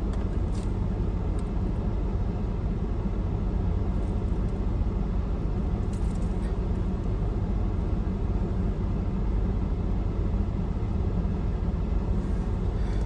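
Steady low rumble of an idling car, heard from inside the cabin, with a few faint clicks.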